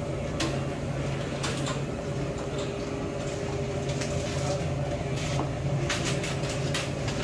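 Convenience-store room tone: a steady hum from the refrigerated drink coolers, with scattered short clicks and knocks and a quick run of them about six seconds in.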